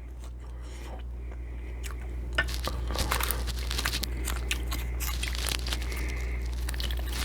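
Close-miked wet chewing and mouth clicks of someone eating shrimp cocktail seafood, over a low steady hum. It is quiet for about the first two seconds, then a dense run of irregular clicks and smacks begins.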